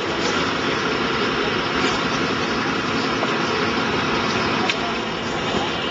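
An engine running steadily at idle, with a few faint clicks.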